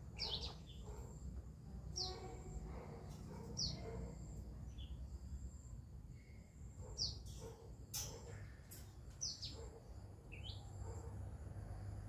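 A bird calling in short, sharp, falling chirps, about seven of them a second or two apart, over a steady low rumble of wind on the microphone.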